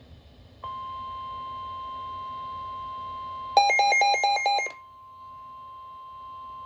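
NOAA Weather Radio's steady warning alarm tone, which announces that a weather warning is about to be read, starts a little under a second in. About three seconds later a loud burst of rapid electronic beeping, about five beeps in a second, sounds over it for roughly a second. Then the steady tone carries on a little quieter.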